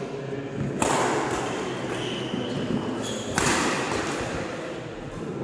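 Badminton rackets striking the shuttlecock during a doubles rally, echoing in a large hall: two loud sharp hits, about a second in and about three and a half seconds in, with fainter knocks and footfalls between them.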